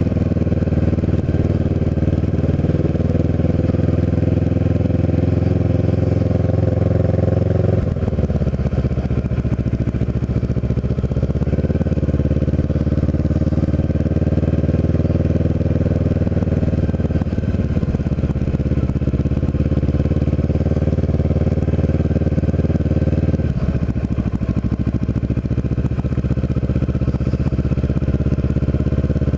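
Kawasaki Ninja 650R's parallel-twin engine running at low riding speed. Its pitch dips sharply twice, about eight seconds in and again about three quarters through, and climbs back slowly each time.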